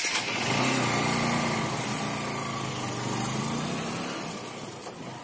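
Motorcycle engine pulling away and riding off, its note rising a little early on, then steadily fading with distance.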